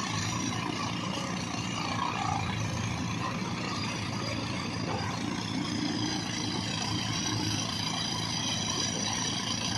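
Heavy diesel engine running steadily.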